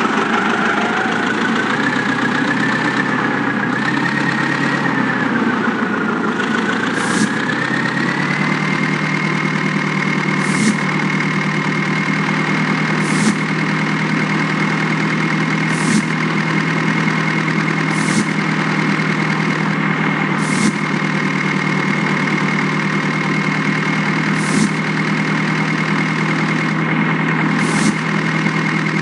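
Heavy diesel engine of earthmoving machinery running steadily with a high whine. The engine and whine rise in pitch over the first several seconds, then hold steady. Short sharp clanks come every two to three seconds.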